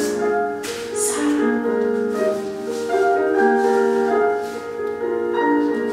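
Slow piano music: a melody of held notes over quiet chords.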